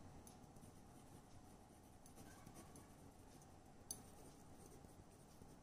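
Near silence, with the faint scratch of a pen writing on paper and a single light tap a little before four seconds in.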